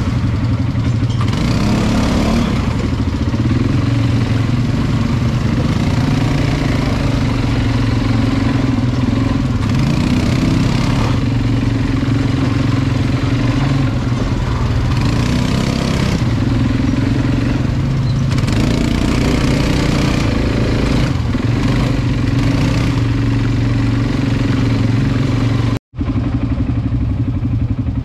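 ATV engine running while being ridden, its pitch rising and falling with the throttle, over a steady rushing noise. The sound cuts out for a moment near the end.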